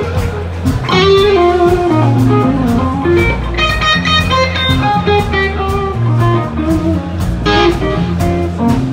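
Live blues band playing: electric guitar lead lines with bent, wavering notes over bass guitar and drums with a steady beat.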